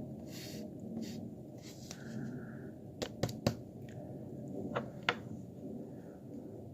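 Faint scraping and handling of an herb grinder while kief is scraped out of its inner ring, with a few sharp clicks of the tool against the grinder: three close together about three seconds in and two more near five seconds.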